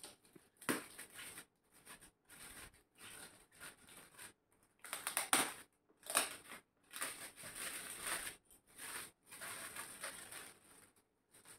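Metallic gift wrapping paper crinkling and tearing in irregular bursts as it is pulled off a small box.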